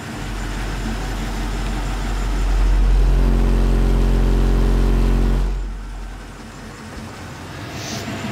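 Car-audio SPL burp: a 45 Hz bass tone from twelve Shok Triton 12-inch subwoofers in a sealed 4th-order enclosure, heard from outside the vehicle. It swells over about three seconds, holds at full level with a buzzing edge for about two and a half seconds, then fades away.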